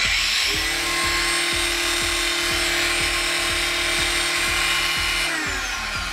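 Parkside PWSA 20-Li B3 cordless angle grinder switched on, spinning up within half a second to a steady high whine with the disc running free. About five seconds in it is switched off and winds down, its pitch falling.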